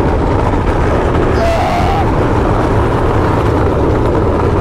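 Steady rumbling road noise as a wheeled couch is towed across asphalt behind a Ford Ranger pickup, its wheels rolling and the truck running.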